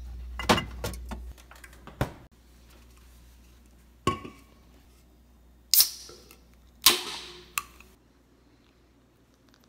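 An aluminium drink can is taken from a fridge with a few clinks, then knocked down on a granite countertop about four seconds in. Near the middle come two loud cracks with a fizzing hiss, a second apart, as the can's tab is pulled open.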